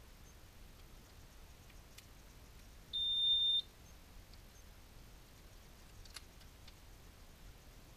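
Honeywell 6150RF alarm keypad's piezo buzzer giving one steady high beep, about two-thirds of a second long, about three seconds in, as power comes back to the keypad. A faint plastic click follows about six seconds in as the keypad faceplate is fitted back on.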